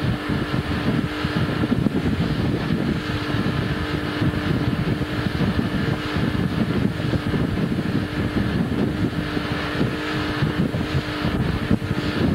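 Motorboat engine running steadily at speed while towing a water skier, with heavy wind noise buffeting the microphone.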